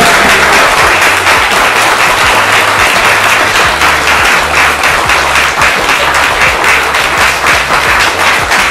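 A group of people applauding, with dense, steady clapping that goes on throughout.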